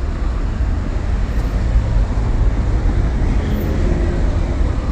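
Steady street traffic noise with a low rumble, picked up by a phone's microphone while walking along a city sidewalk.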